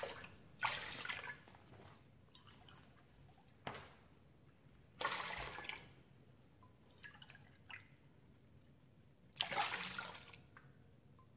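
Apple juice poured from a plastic bottle into a stainless steel measuring cup and tipped into a stainless steel mixing bowl: several short splashing pours a few seconds apart. A light knock about four seconds in.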